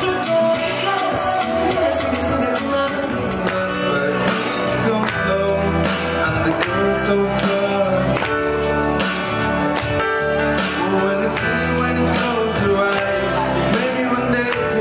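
Music: a song with singing over guitar and a steady beat.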